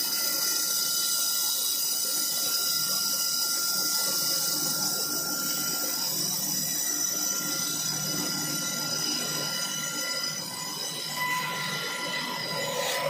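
Portable horizontal band sawmill running through a log, a steady high-pitched whine with a hiss from the blade in the wood.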